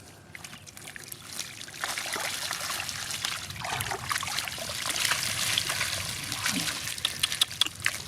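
Water trickling and splashing, a steady noisy wash peppered with small splashes that grows louder about two seconds in.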